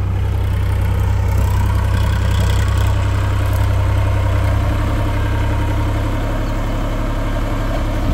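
Massey Ferguson 7250 DI tractor's diesel engine running steadily with a deep low drone while ploughing and turning; the engine note changes about six seconds in.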